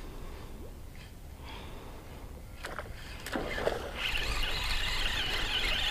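A big northern pike hooked on a topwater popper and fought on a spinning rod. A few short knocks come about three seconds in, then a steady rushing, hiss-like noise starts about four seconds in.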